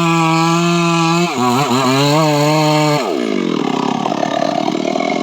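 Stihl MS 382 two-stroke chainsaw running at high revs with a steady high pitch, wavering briefly about a second and a half in. About three seconds in, the pitch drops sharply and the engine falls to a lower, rougher running.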